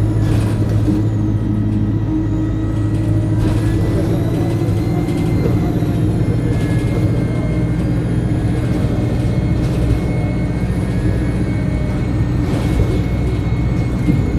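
Alexander Dennis Enviro200 single-decker bus heard from on board while under way: a steady diesel engine drone, with a thin, high turbocharger whine that slowly rises and falls.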